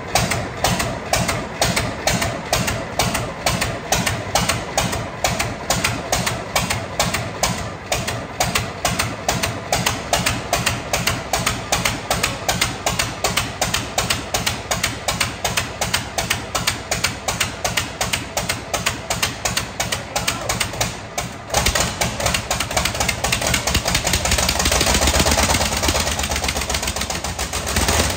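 Scania 141 V8 diesel engine being cranked over on the starter, a steady chug about three times a second. About three-quarters of the way through it fires and runs on its own, growing louder for a few seconds: the engine's first start after being transplanted into a Volvo FH12.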